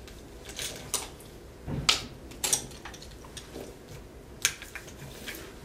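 Makeup items being rummaged through and handled: a series of light clicks and knocks with some rustling, the loudest a dull knock about two seconds in.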